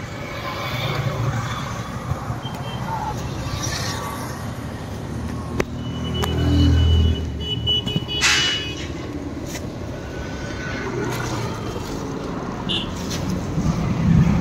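Road traffic on a city street: a steady low rumble of passing vehicles, swelling as a vehicle goes by about six to seven seconds in, with a short sharp noise just after.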